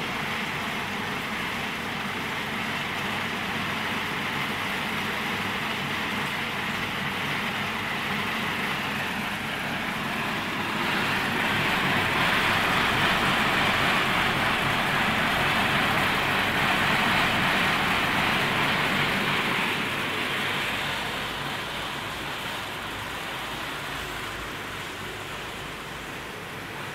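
Machinery of a corn-snack extrusion production line running steadily: a low hum under a hissing rush. The rush grows louder about a third of the way in, holds for about ten seconds, then eases.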